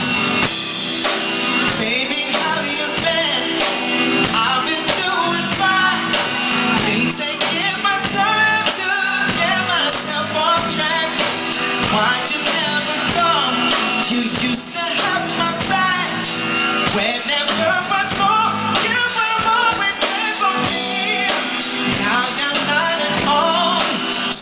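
Live R&B song: a male singer singing a melody into a microphone over a live band.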